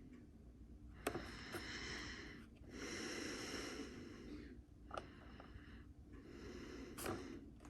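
Faint slow breathing close to the microphone, a few breaths in and out, with a few light clicks.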